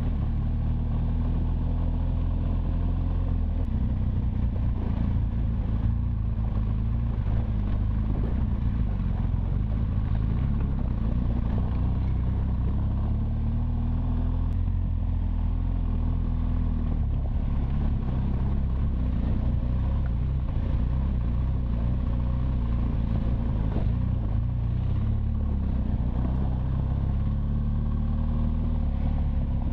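BMW R1200 GS Adventure's boxer-twin engine running steadily while riding a gravel road, its pitch rising and falling gently a few times with the throttle, over a constant rumble.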